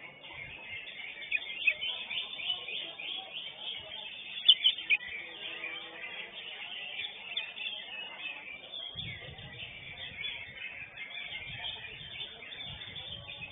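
Cucak hijau (green leafbird) singing: a continuous, rapid chattering twitter, with a couple of louder sharp notes about four and a half seconds in.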